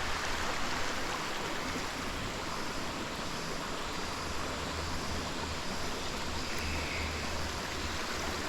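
Steady rush of waterfall water pouring over rocks into a pool.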